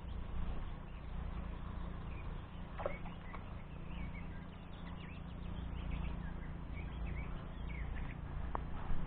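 Wind noise on the microphone, a steady low rumble, with small birds chirping faintly above it and a couple of short clicks.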